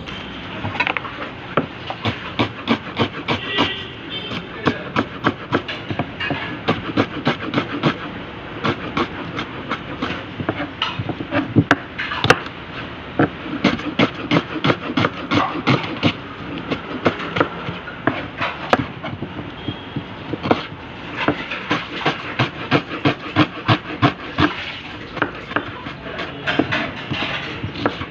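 Rapid, repeated knocking of cooking work in a kitchen, several sharp knocks a second in uneven runs, with voices faintly behind.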